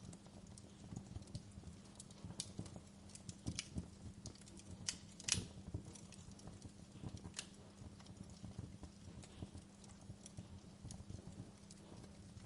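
Wood fire crackling in a fireplace: irregular pops and snaps, with the loudest pop about five seconds in, over a low steady hum.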